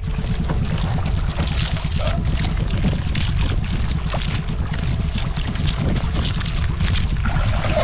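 Wind rumbling on the microphone over water lapping and splashing against a wooden boat's hull.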